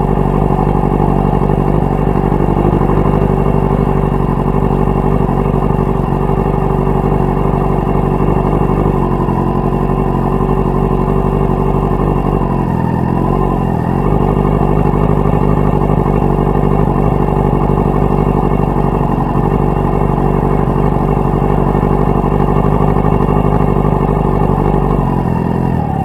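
Yamaha R6 sport bike's inline-four engine running steadily while riding at low speed. The revs dip and climb again about halfway through, and dip once more near the end.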